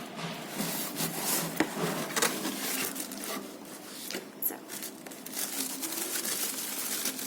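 A cardboard box being handled and opened by hand: irregular rubbing and scraping with scattered small knocks and clicks.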